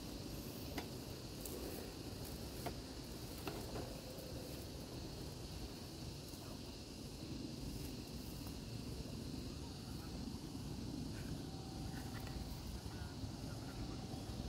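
Steady high chirring of insects in dense grassy undergrowth over a low, constant outdoor rumble, with a few faint clicks.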